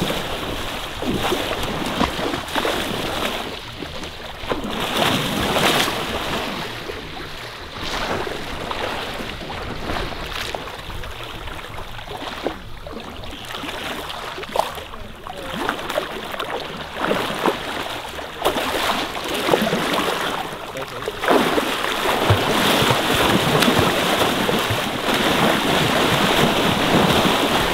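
Water splashing and sloshing in shallow surf as a hooked sandbar shark thrashes at the water's edge, in irregular splashes over the steady wash of the water.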